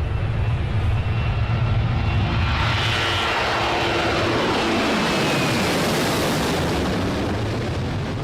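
Emirates Airbus A380 jet engines at takeoff power as the airliner passes. The noise swells about two to three seconds in, with a whine that falls in pitch as it goes by, then eases off.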